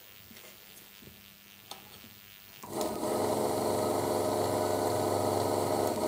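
A few faint handling clicks, then about two and a half seconds in an LG top-load washing machine's motor switches on and runs with a steady hum. It drives the gearbox through the belt and pulley in its geared-down, low-speed wash setting.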